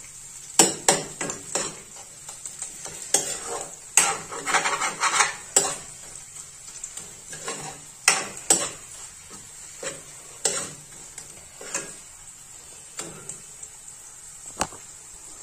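A spoon scrapes and knocks against a nonstick kadhai at an irregular pace as mashed boiled potato is stirred and fried in ghee, with a steady faint sizzle underneath.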